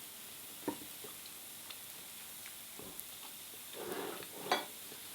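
Faint steady sizzle of takoyaki batter cooking in a takoyaki pan, with a few light clicks of utensils.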